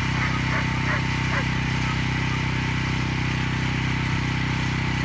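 Small engine running steadily at a constant speed, an even low hum.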